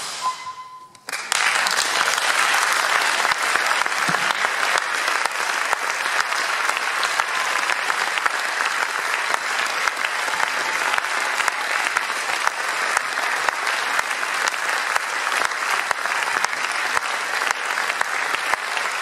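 Audience applauding: the clapping breaks out suddenly about a second in after a brief hush, then goes on steadily.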